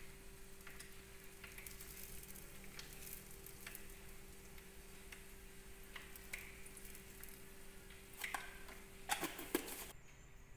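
Hot oil with leftover bits of fried fish cake sizzling faintly in a frying pan, a fine steady crackle over a steady hum. A few sharper clicks come near the end.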